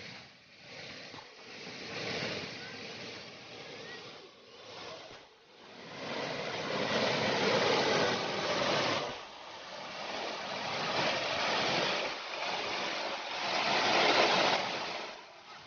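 Rushing water of a small waterfall, a steady hiss that swells and fades several times, loudest about halfway through and again near the end.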